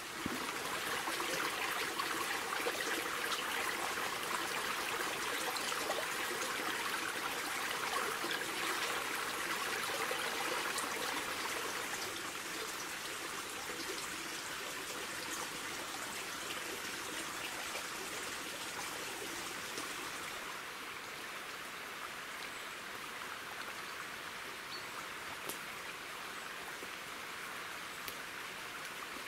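Small woodland stream running over rocks: a steady rush of water that grows a little quieter after the middle.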